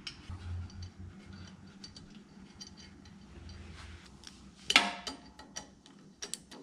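Small metal parts being handled: a cast aluminium intake manifold end casting set onto its studs on a VW Type 1 cylinder head, then a nut and washer fitted onto a stud by hand. Light scattered clicks and taps, with one louder knock about three-quarters of the way through.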